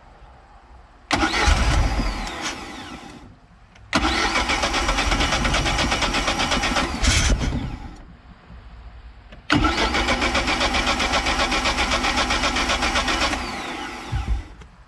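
Mercruiser 3.0 L four-cylinder marine engine being cranked by its starter in three attempts, the first about two seconds long and the next two about four seconds each, on a first start after its carburetor was replaced.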